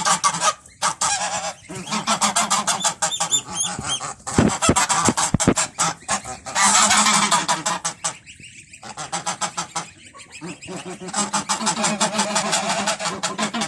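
A flock of domestic geese honking almost without pause, many calls overlapping, with a brief lull about eight seconds in.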